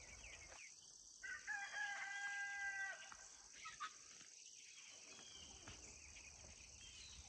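A rooster crows once, about a second in: one drawn-out call held at a steady pitch for under two seconds. A steady high buzz of insects runs underneath.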